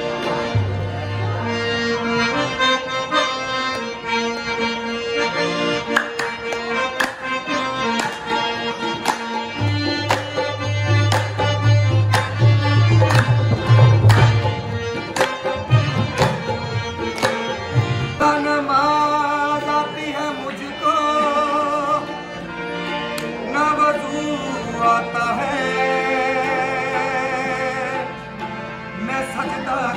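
Live Sufi devotional song in qawwali style: two harmoniums play held chords under a male lead voice, which sings ornamented runs in the latter half. Sharp hand claps keep an even beat through the middle.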